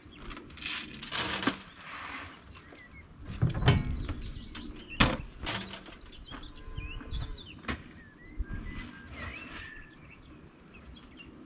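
Small birds chirping and singing outdoors, broken by several sharp knocks or clacks spaced a second or more apart.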